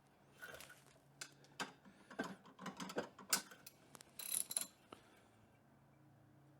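Irregular metallic clicks and short scrapes of a wrench working the arbor nut on a bench grinder's shaft, tightening a wire wheel in place. The clicks stop about five seconds in.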